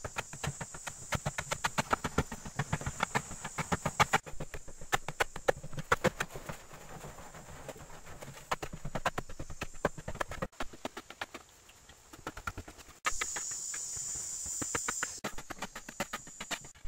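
Short-handled hoe chopping and scraping into dry, crumbly earth in quick repeated strikes, several a second, in a few stretches with abrupt breaks. A steady high-pitched whine runs underneath, loudest near the end.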